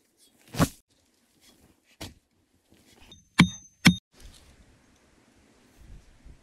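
A shovel scooping and tossing sandy soil, then a light knock. About 3.4 s in come two sharp strikes half a second apart, each with a short metallic ring.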